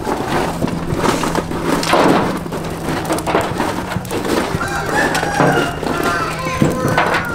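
A rooster crows once about five seconds in, with chickens clucking around it. Under this run the knocks and scrapes of wooden sticks stirring charcoal in a sheet-metal grill box.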